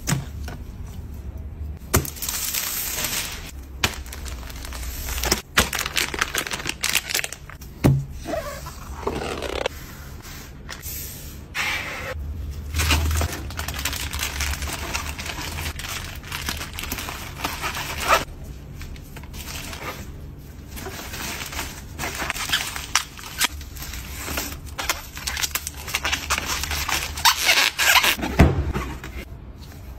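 Packing-table handling sounds: gloved hands rustling and crinkling plastic bags and a black bubble mailer, with irregular taps and clicks of items being picked up and set down.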